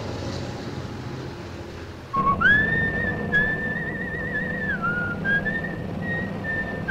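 A man whistling a tune inside a moving car, over the steady low hum of the engine and road. The whistle starts abruptly about two seconds in, after quiet background music, and wavers in a trill in places.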